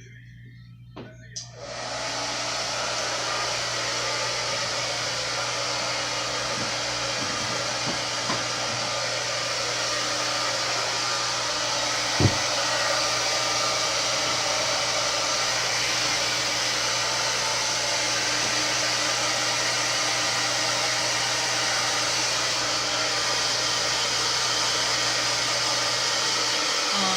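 Turbo Styler handheld blow dryer switched on after a couple of clicks, then running steadily with a constant rush of air and a low motor hum. One brief knock comes midway.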